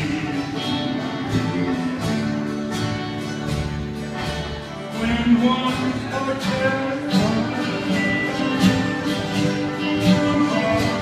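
Live jam-session music led by strummed acoustic-style guitar, with a steady beat of strum strokes and sustained notes.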